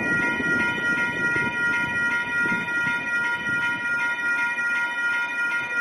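Railroad crossing warning bell ringing steadily while the crossing gates rise, over a low rumble.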